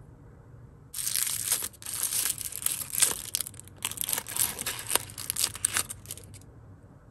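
Small pink printed plastic wrapper from an L.O.L. Surprise toy being unwrapped and crumpled by hand: dense crinkling with many sharp crackles, starting about a second in and stopping about a second before the end.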